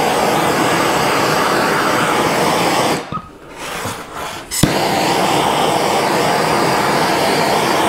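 Handheld gas torch burning with a loud, steady hiss as it toasts mini marshmallows. It stops about three seconds in and starts again with a sharp click a second and a half later.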